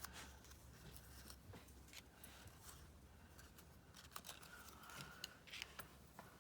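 Faint rustling and scattered small clicks of paper cut-outs being handled, over a low steady hum.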